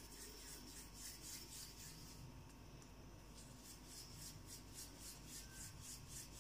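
Faint rubbing of floured palms rolling a small ball of samosa dough made from maida, a few strokes a second, in two runs with a short pause between.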